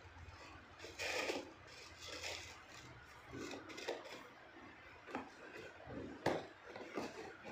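Cardboard shoe box being handled: scattered scraping and rubbing sounds, with a sharp click about six seconds in.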